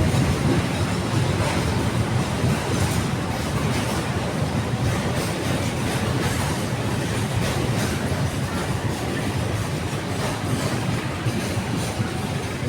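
A train rolling steadily past at close range, a continuous low rumble with the wheels clicking over the rail joints.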